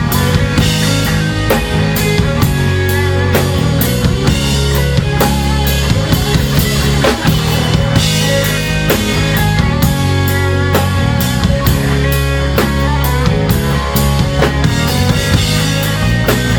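Instrumental rock band playing live: electric guitar over bass guitar and a busy drum kit, with a steady stream of cymbal and drum hits.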